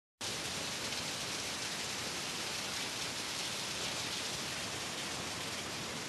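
Underground cave waterfall: water falling steadily and splashing onto rocks in an even, unbroken hiss.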